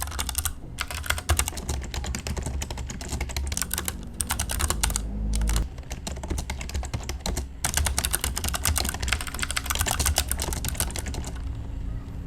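Typing on a Tecware Phantom L low-profile mechanical keyboard with Outemu low-profile switches: a rapid, continuous clatter of keystrokes with a few brief pauses, tapering off near the end.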